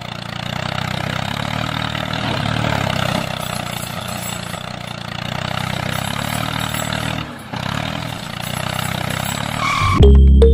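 Steady engine-like running sound with a low, even drone, which dips briefly about seven seconds in. Music takes over near the end.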